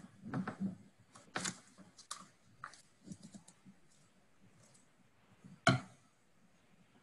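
Scattered taps and clicks on a computer keyboard, irregular and light, with one louder knock near the end.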